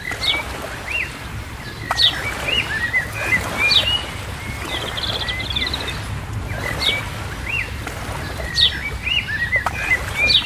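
Small songbirds chirping and whistling repeatedly, with short calls that drop in pitch and a brief rapid trill about halfway through, over a steady low background rumble.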